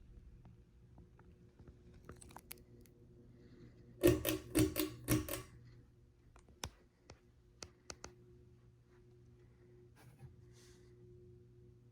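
Quorum Prizzm ceiling fan's motor humming faintly and steadily. About four seconds in comes a quick run of sharp clicks and rattles, followed by a few single clicks.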